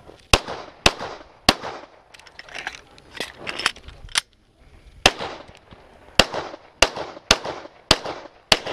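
Semi-automatic pistol being fired in quick succession, loud shots about half a second apart, each with a short ringing tail. A stretch of a few seconds near the middle holds only fainter pops.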